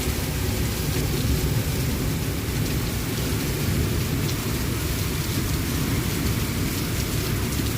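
Heavy rain pouring steadily in a thunderstorm, with a constant low rumble underneath and no single thunderclap standing out.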